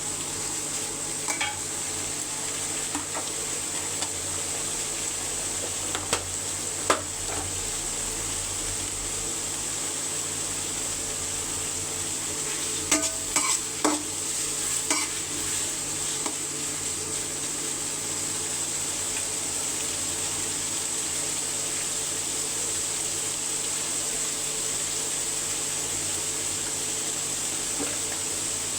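Food sizzling in hot oil in a cooking pot: a steady frying hiss, with a spatula stirring and scraping against the pot now and then, most busily about halfway through.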